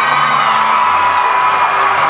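Large crowd cheering, whooping and shouting continuously, with music playing underneath.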